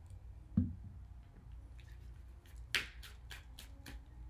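Tarot cards being handled and laid out by hand: a dull thump about half a second in, a sharp card rustle near three seconds in, and a few faint card ticks.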